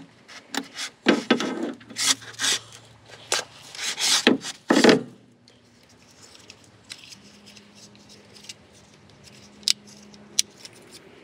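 Rubbing and scraping of hands and a sleeve working at a propane hose fitting under a van: a run of short loud scrapes over the first five seconds, then quieter, with a couple of sharp clicks near the end.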